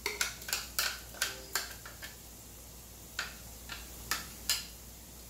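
A utensil scraping and knocking against a blender jar to empty out ground pork cracklings onto a plate. There is a quick run of clicks and scrapes in the first second and a half, a pause, then a few single knocks about half a second apart.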